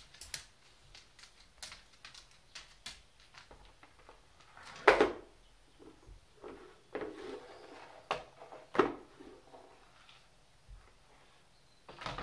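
A hollow white plastic feeder being pushed and tipped across a wooden parquet floor by a cat: scattered light clicks and scrapes, with sharper knocks of plastic on wood about five seconds in, near nine seconds, and again at the very end.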